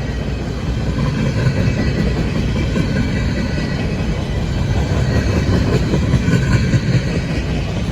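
Freight train cars rolling past close by: a steady rumble of steel wheels on the rails, with some clickety-clack over the joints.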